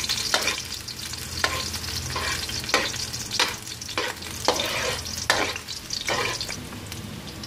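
Minced garlic sizzling in hot oil in a metal wok while it is sautéed until it browns. A metal spatula scrapes and stirs against the pan about once a second.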